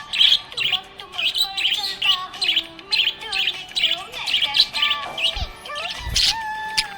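Small pet parrots chirping busily, a rapid run of short high chirps several times a second, with a louder burst about six seconds in.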